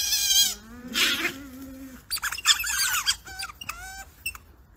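A group of otters squeaking and chirping: many short, high-pitched calls overlapping in bursts.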